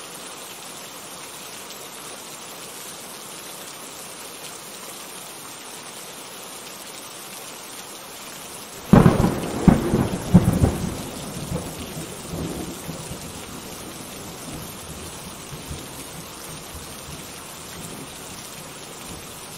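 Steady rain falling, then about nine seconds in a sudden clap of thunder with several cracks that rumbles on and dies away over a few seconds, leaving the rain.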